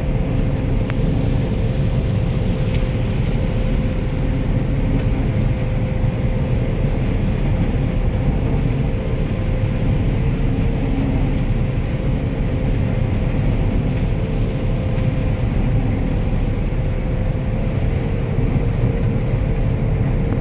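Combine harvester running steadily while harvesting corn: a constant engine and machinery drone with a steady hum over it.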